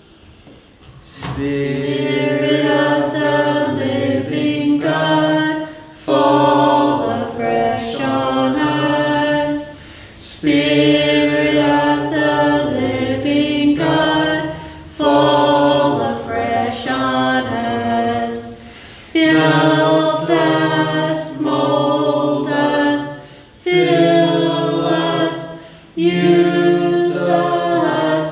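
Hymn sung by a small group of voices in harmony with no instruments, in phrases of about four seconds with short pauses between them.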